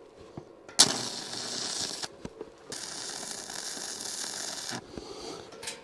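Arc welding steel caster mounts onto a steel frame: the arc crackles and hisses in two bursts, a short one of about a second and then a longer one of about two seconds.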